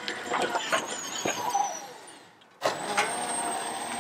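Electric-converted John Deere 140 garden tractor driving in low gear: its 48-volt electric axle motor whines, falling in pitch about a second in as it slows, with scattered clicks and knocks. The sound fades out, then cuts back in about two and a half seconds in with a steady whine.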